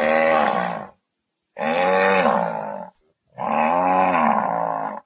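Zebu lowing: three long moos, each rising and then falling in pitch, with short pauses between them.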